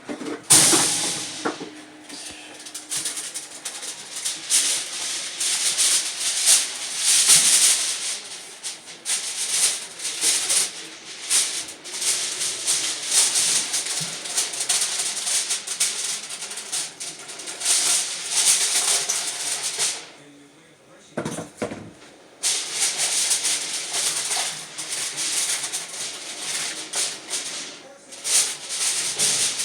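Aluminum foil being crinkled and handled, a dense irregular crackle with a short pause about two-thirds of the way through.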